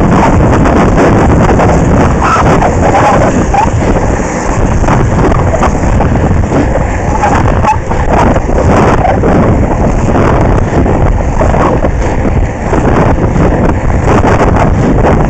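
Wind buffeting a moving camera's microphone at inline-skating speed, mixed with the rumble of skate wheels rolling on asphalt. It is loud and steady.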